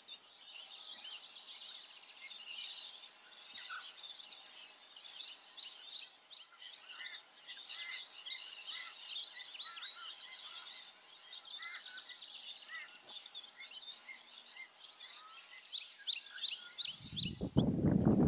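Many wild birds chirping and calling over one another in a dense chorus. Near the end, a loud, low, rough noise breaks in and drowns them out.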